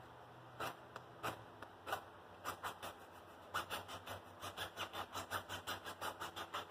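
A file scraping the flux coating off one side of a stick welding rod in short strokes, a few spaced ones at first, then a quicker run of about three to four strokes a second.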